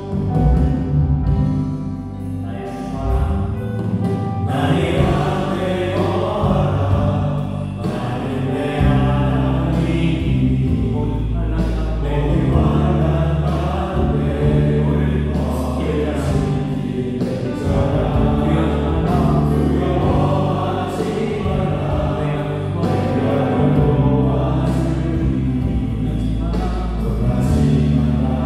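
A live worship band playing a slow gospel song: keyboards, electric guitar, bass guitar and drums, with sustained chords.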